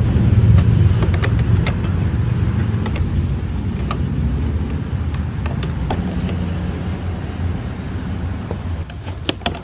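A car running with a low, steady rumble that slowly fades, with scattered light clicks and taps over it.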